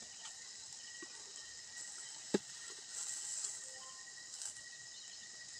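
Wood fire with meat roasting on a spit over the embers, hissing softly, with one sharp crackle a little over two seconds in and a slightly louder stretch of hiss a second later. A faint steady high tone runs underneath.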